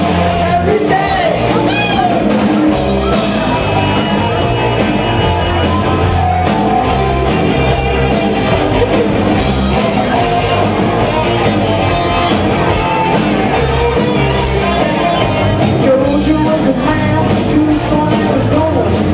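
Live rock band playing loudly, with a steady drumbeat and a singer.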